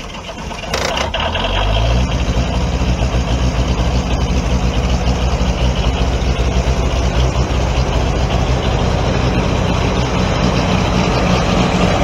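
Detroit Diesel 6V92 two-stroke V6 diesel catching on a cold start. Its speed rises over the first couple of seconds, then it settles into a steady, loud run.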